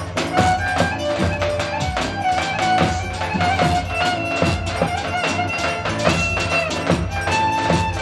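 Roman havası dance music: a steady, fast drum beat under a lead melody of held and sliding notes.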